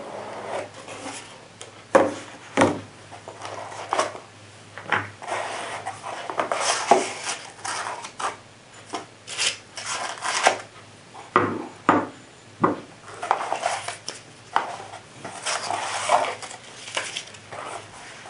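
Cardboard box and packing being handled while a riflescope is unpacked: irregular knocks, scrapes and paper rustles as the scope, lens caps and box are lifted out and set down on the table.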